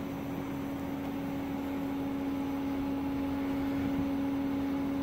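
Steady mechanical hum: a constant low-pitched tone over an even hiss, with no change in pitch or level.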